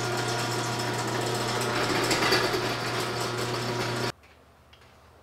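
Electric garage door opener raising a sectional garage door: a steady motor hum with the door's running noise, cutting off suddenly about four seconds in.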